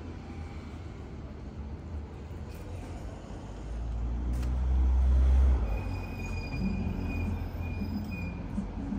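Road traffic: a vehicle's low rumble swelling as it passes close, loudest about five seconds in, followed by a thin high squeal lasting a couple of seconds.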